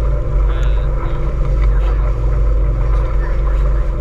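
Motorboat engine running steadily at a constant pitch.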